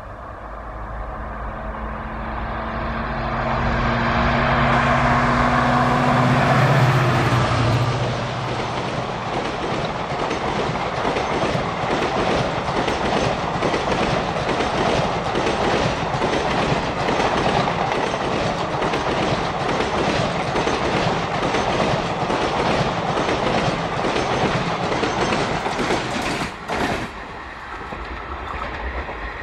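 EMD WDP-4B diesel-electric locomotive's two-stroke engine working under power as it approaches, growing louder over the first several seconds. It then gives way to ICF coaches passing, their wheels beating a steady fast clickety-clack over the rail joints. The sound breaks off near the end and carries on fainter.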